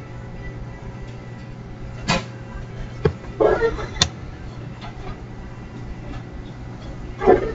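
Steady low hum of background room noise, broken by a few brief knocks and bumps: a sharp click about four seconds in and the loudest bump near the end.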